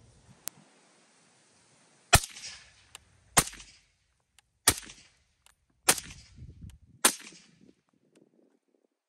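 Five suppressed .308 rifle shots from a semi-automatic AR-10 with an 18-inch barrel and a Torrent 30M suppressor, fired steadily about a second and a quarter apart, each followed by a short echo.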